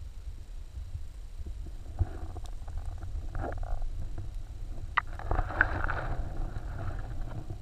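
Underwater sound through a GoPro's waterproof housing: a steady low rumble of water movement, with rushing swells of surge about two seconds in, again around three and a half seconds, and longest from about five seconds on, plus scattered faint clicks.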